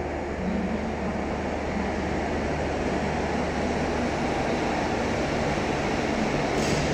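Electric commuter train pulling into an enclosed concrete station platform, a steady rumble of wheels and traction gear that grows slightly louder as it comes past, with a short hiss near the end.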